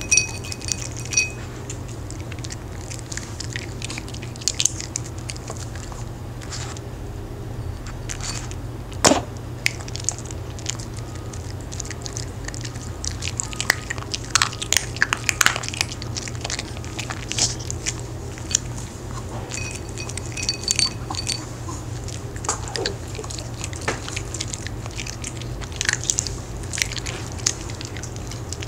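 A Maltese dog crunching and chewing hard homemade sweet-potato dog cookies from a plate: short crisp crunches at irregular intervals, over a steady low hum.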